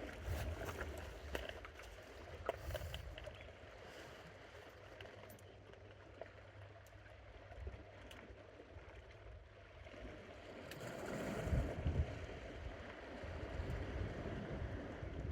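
Wind rumbling on the microphone and sea water washing against rocks, swelling about ten seconds in and again near the end, with a few sharp clicks near the start.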